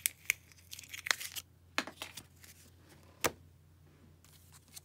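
Trading cards and foil card-pack wrappers being handled: a handful of sharp taps and clicks with crinkly rustling between them.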